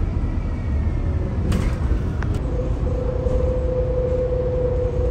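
Airport apron bus driving, with a steady low engine and road rumble and a couple of short rattling knocks. A steady mid-pitched hum joins about halfway through.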